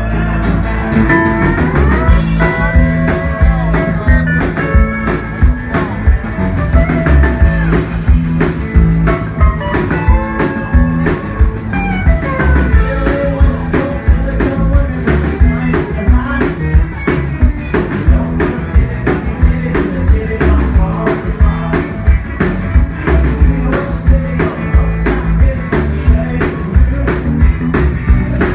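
Live country band playing an up-tempo song: a drum kit keeping a steady beat under electric guitar lines.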